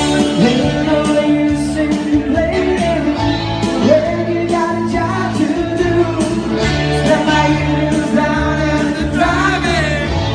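A rock song performed live: a man singing into a microphone over amplified guitar backing.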